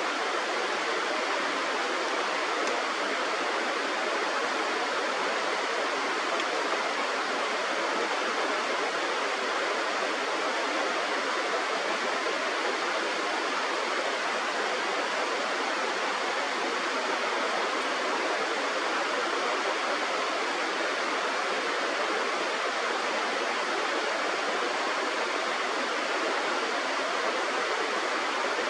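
Running river water, a steady even rush with no changes.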